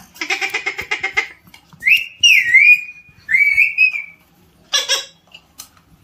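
Alexandrine parakeet calling: a buzzy, rapidly pulsed call for about a second, then a run of whistled notes that glide up and down, and a short harsh squawk near the end.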